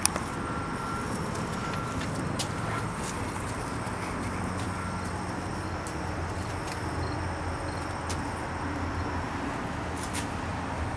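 Steady low hum of outdoor background noise, with a sharp click right at the start and a faint, brief high tone that comes and goes a few times in the first seconds.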